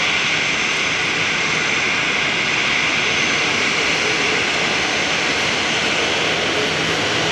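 Airbus A340-300's four CFM56 turbofan engines running: steady jet noise, a broad, even hiss with no change in level.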